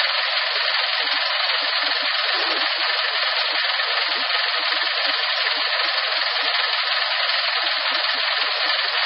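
Dongfeng hook-lift garbage truck running with its hydraulic hook-arm system in operation, heard as a steady, even hiss-like noise with no bass.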